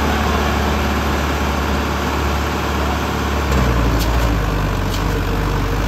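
Sonalika tractor's diesel engine running hard under heavy load as it drags a soil-laden trolley through soft sand; its note shifts about halfway through.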